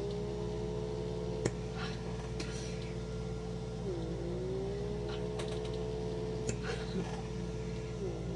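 Battery-powered pore vacuum (blackhead suction device) running on its lowest suction setting, a steady small-motor whine. The pitch dips and recovers about every four seconds, with scattered light clicks.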